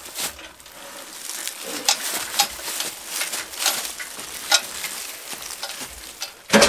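Split firewood being handled and stacked: scattered wooden knocks and scraping, with one louder clunk near the end.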